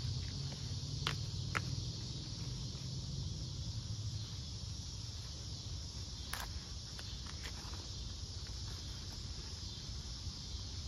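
Hands scraping and pulling in loose soil around elephant ear roots, with a few sharp clicks, over a steady high insect chorus.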